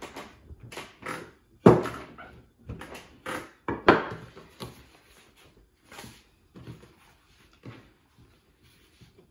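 Wooden rolling pin knocking and rolling on a wooden tabletop while a thin sheet of fresh egg pasta is pressed out and handled by hand. It makes a string of irregular knocks and scuffs, the loudest about two seconds and four seconds in, growing sparse in the second half.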